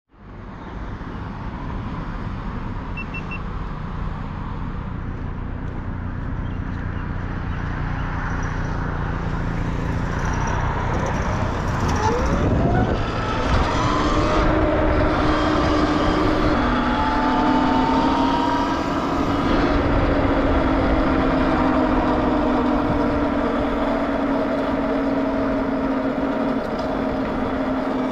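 Sur-Ron X electric dirt bike being ridden along city streets: steady wind and tyre noise, with the electric motor's whine rising about halfway through as the bike speeds up, then holding steady.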